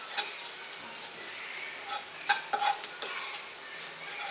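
A steel spoon stirring browned sliced onions in a nonstick kadai, scraping and clicking irregularly against the pan, over a steady sizzle of the onions frying in a little oil.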